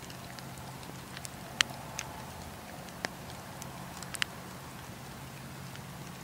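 Wood campfire crackling: scattered sharp pops and snaps over a steady low hum, the loudest pop about one and a half seconds in.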